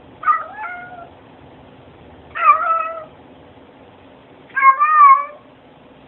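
A domestic cat meowing three times, each meow well under a second long, about two seconds apart.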